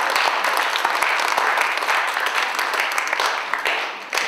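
Audience applauding, many hands clapping together, thinning out toward the end.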